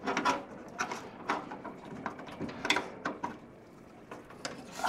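Scattered clicks and knocks, with some scraping, as an Intel Pentium Pro CPU is handled and seated into its Socket 8 socket on the motherboard.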